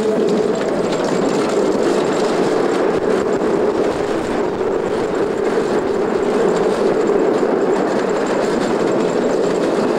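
Bobsled roller coaster car running fast through its open trough, heard from the rider's seat as a loud, steady rolling rumble.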